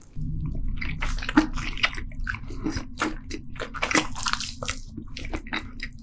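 A person biting and chewing a large piece of salmon nigiri close to the microphone: a run of quick wet clicks and smacks over a low rumble.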